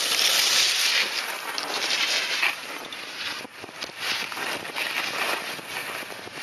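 Skis hissing through snow, loudest in the first second or so as the skier passes close, then fainter and uneven as they ski away.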